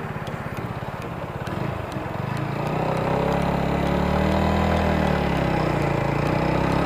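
Motorcycle engine chugging at low speed, then pulling away about two seconds in, its note rising and getting louder before holding steady as the bike picks up speed.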